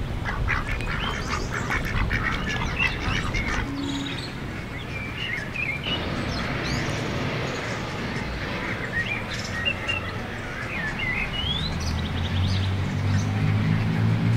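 Mallard ducks quacking, with small birds chirping in short rising notes. A low steady hum comes in about twelve seconds in.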